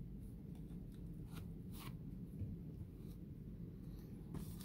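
Faint rustling and soft clicks of trading cards and a foil card pack being handled over a steady low hum, the rustle picking up near the end as the foil wrapper starts to be torn open.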